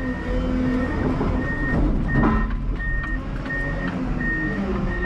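Komatsu WA320 wheel loader's reverse alarm beeping evenly, about one beep every 0.7 seconds, over its diesel engine running. A brief clatter comes about two seconds in.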